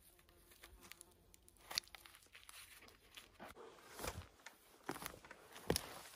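Irregular crunching and rustling in dry forest-floor litter, growing busier in the second half, with a faint insect buzz in the first two seconds.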